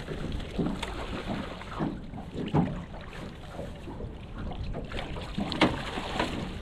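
Water splashing and sloshing against a small boat, in irregular bursts, with low wind rumble on the microphone.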